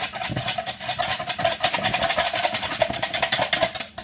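A whisk beating egg and milk fast in a plastic measuring jug: a rapid rattle of clicks, about nine a second, as it knocks against the jug's sides. It breaks off briefly at the very end.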